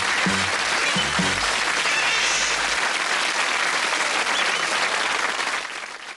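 Studio audience applauding over the last bass notes of the closing theme music; the applause fades out near the end.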